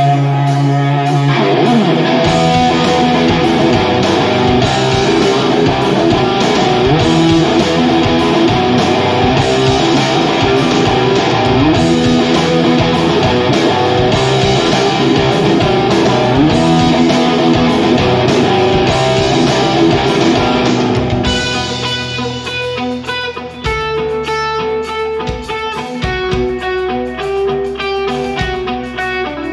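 Live instrumental rock with electric guitar. The music is dense and loud for most of the stretch, then thins out about twenty seconds in to clearer, separate notes at a slightly lower level.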